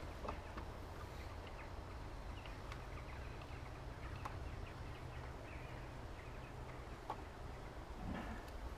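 Quiet outdoor background: a steady low rumble with a few faint, short bird chirps scattered through it.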